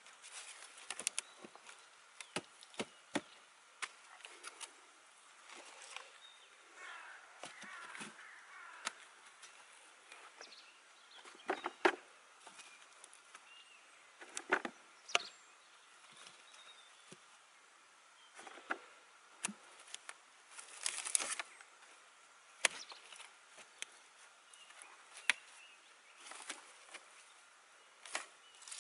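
Dead sticks and branch pieces knocking and clattering as they are handled and stacked, in scattered irregular knocks with quieter rustling between them; the sharpest knock comes about twelve seconds in.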